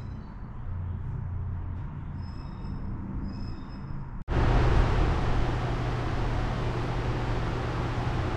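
Steady low background hum with a few faint high chirps, then an abrupt cut about four seconds in to a louder steady rushing noise over a low drone.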